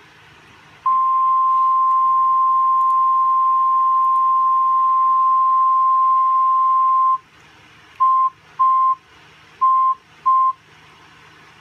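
NOAA Weather Radio warning alarm tone: a single steady, loud tone near 1050 Hz held for about six seconds, then four short beeps at the same pitch, announcing a severe thunderstorm warning broadcast.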